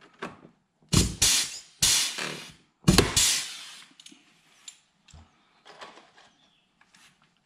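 A pneumatic rivet gun setting pop rivets: four quick, loud cycles of hissing air, starting about a second in, the last near three seconds. Softer clicks and tool-handling knocks follow.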